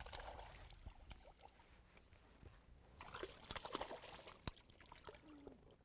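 Hooked smallmouth bass thrashing at the surface beside the boat: faint splashing and trickling water, busier from about three seconds in.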